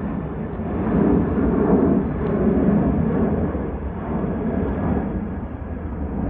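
An airplane passing over: a steady low rumbling noise that swells about a second in and eases slightly toward the end.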